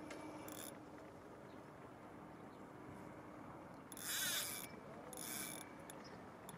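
Spinning reel's drag ratcheting in short bursts as a strong fish pulls line off the reel, once briefly near the start, then loudest about four seconds in and again a second later.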